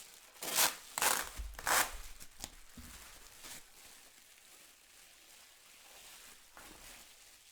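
Plastic packaging crinkling and tearing as a lightsaber hilt is unwrapped: three or four loud rustles in the first two seconds, then quieter handling.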